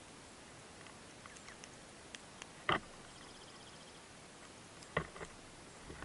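Small birds feeding on seed on snow close to the microphone: scattered soft pecking ticks and two sharp knocks, each followed by a short, high, rapid trill like a dark-eyed junco's.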